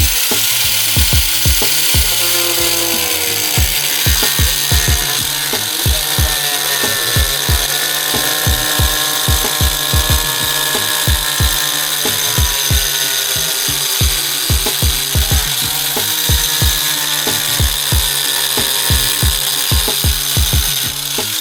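Power tool cutting through the metal of a truck's front bumper, a steady harsh cutting noise, under background music with a steady beat.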